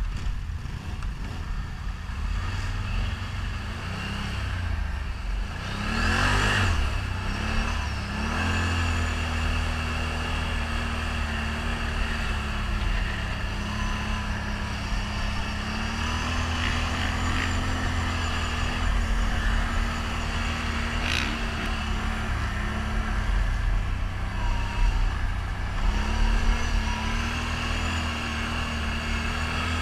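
ATV engine running while riding, revving up about six seconds in, then holding a fairly steady pitch with small rises and dips.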